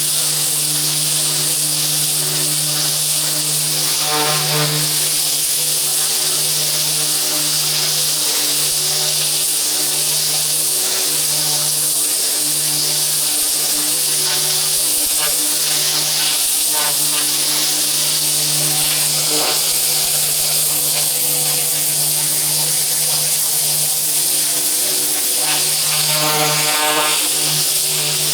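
Pressure washer running steadily: a constant hum from the machine under a loud, even hiss of high-pressure water spraying onto a hard surface.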